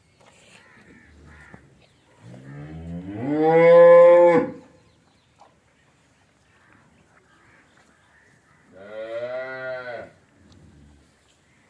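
Rathi cattle mooing twice: a long, loud moo rising in pitch about two seconds in, then a shorter moo near the end.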